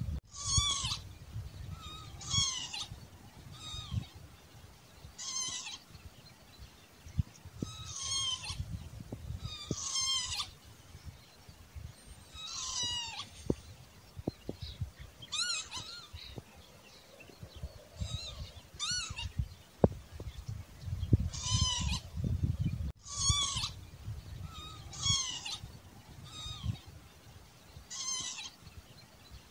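Northern lapwing calling over and over, a short call every one to two seconds. Each call is a slurred, wavering note that slides down in pitch.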